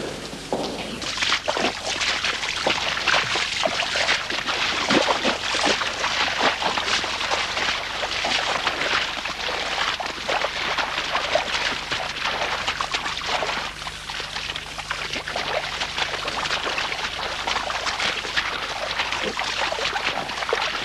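Rustling and crackling of dry brush and twigs as several men push through undergrowth on foot, a dense run of small snaps with no pauses.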